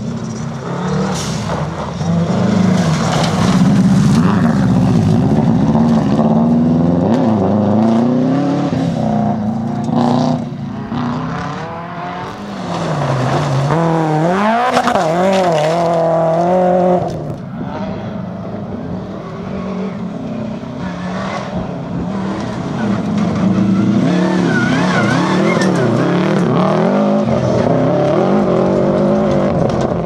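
Rally cars driven hard one after another on loose gravel, among them a Subaru Impreza. The engines rev up and fall back again and again through gear changes, with gravel noise from the tyres.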